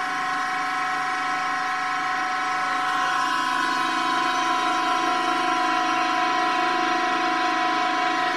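Hydraulic press pump running under load with a steady, multi-toned whine as the ram bears down on a bowling ball, the force climbing; the whine grows slightly louder over the seconds.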